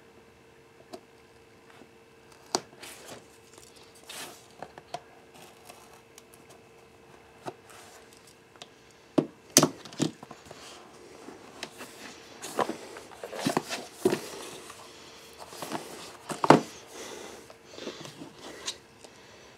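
Cardboard packaging being handled and opened: a pocket knife slitting the seal on a small rigid box, then knocks, clicks and rustles as the box is turned over, set down and its lid lifted, busiest in the second half.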